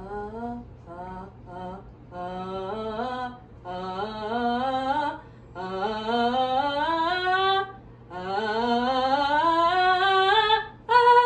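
A trained female singer doing vocal slides: a few short low notes, then four long rising pitch glides with vibrato, each reaching higher than the last, and a loud short higher note near the end.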